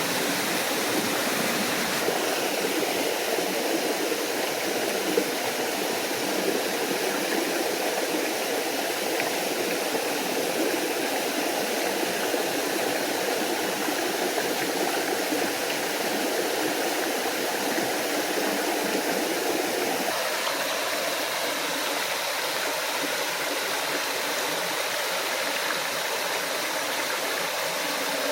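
Small forest waterfall and stream: water rushing and splashing steadily, its tone shifting slightly about two seconds in and again about twenty seconds in.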